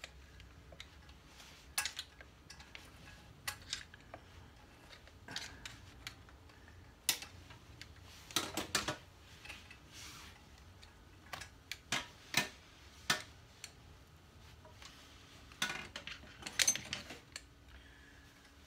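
Irregular light metallic clicks and clinks of hand-work at a BSA A70 Lightning's engine casing as stator wires with bullet connectors are fed through the hole beside the gearbox, with a bunch of clicks about eight seconds in and another near the end.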